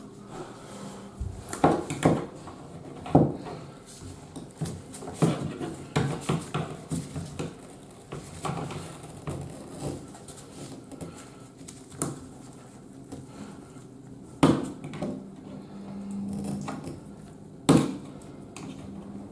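Long metal tweezers clicking and scraping against a bathtub drain's metal strainer as a hair clog is pulled out, with scattered sharp clicks and two louder knocks near the end.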